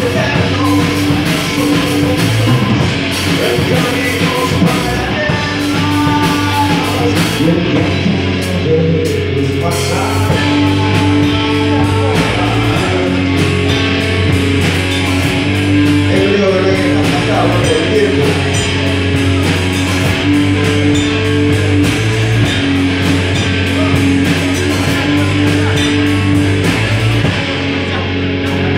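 Live rock band playing: electric guitar and drum kit, with a singer's vocals coming and going over the music.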